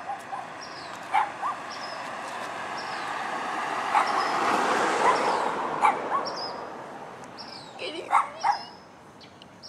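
A dog barking and yelping in short calls several times, with a spell of steady rushing noise that swells and fades in the middle, like a vehicle passing.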